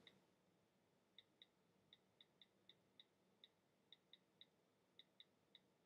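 Faint clicks of keys being typed on a computer keyboard, about a dozen and a half keystrokes at an uneven typing pace, starting about a second in.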